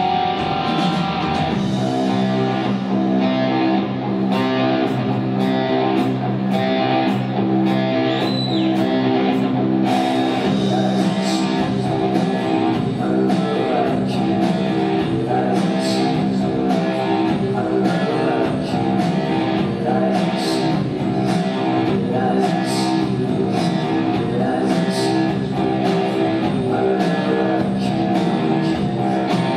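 Live rock band playing an instrumental passage: electric guitar chords ringing over a steady drum beat.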